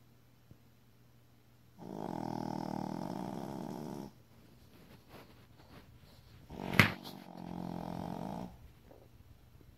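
A pet snoring in slow, drawn-out breaths: two snores about five and a half seconds apart, the first about two seconds long. Shortly before the second snore comes one short, sharp noise, the loudest sound here.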